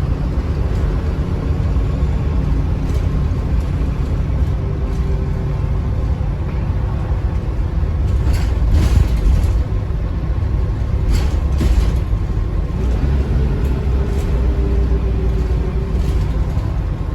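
Bus with a ZF automatic gearbox driving: a steady low engine rumble, with a faint whine that comes in twice and a few brief rattles about halfway through.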